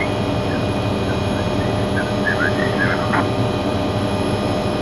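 Cockpit noise of an MD500E helicopter in forward flight: the Rolls-Royce 250-C20B turbine's steady high whine over the dense drone of engine and rotors.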